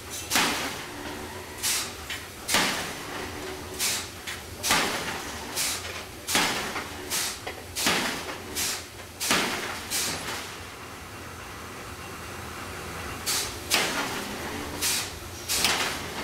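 Power hammer striking a white-hot steel workpiece in open-die forging: about a dozen heavy blows a little under a second apart, a pause of about three seconds, then a few more blows near the end.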